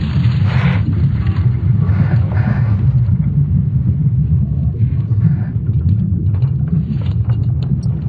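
Sonification of Earth's magnetic field, made from signals measured by ESA's Swarm satellites: a deep, steady rumble, with brief rustling flurries over it about half a second in and again around two seconds.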